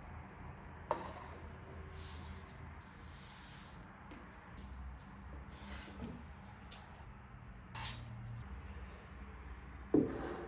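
Handling sounds: a sharp knock about a second in and a louder one near the end, with several short hissing rushes in between, over a low steady hum.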